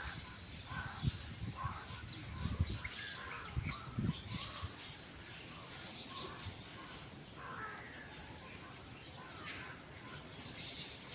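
Birds chirping and calling outdoors, short calls scattered throughout, with a few low thumps in the first four seconds.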